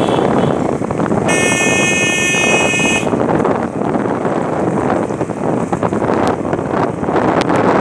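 Wind rushing over the microphone and road noise from a motorcycle on the move, with a vehicle horn sounding once for nearly two seconds about a second in.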